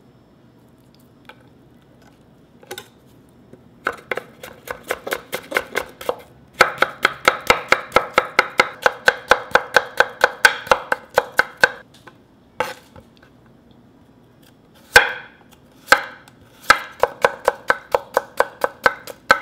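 Chef's knife rapidly slicing cucumber into thin matchsticks on a wooden cutting board. Each stroke is a sharp tap of the blade against the board, coming in quick runs. It starts after a few near-quiet seconds, breaks off midway for a pause with a few single strokes, then picks up again near the end.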